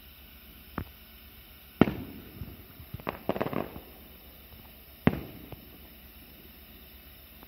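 Aerial firework shells bursting at a distance: a sharp bang about a second in, a loud boom near two seconds that echoes away, a quick cluster of smaller pops around three and a half seconds, and another loud echoing boom about five seconds in.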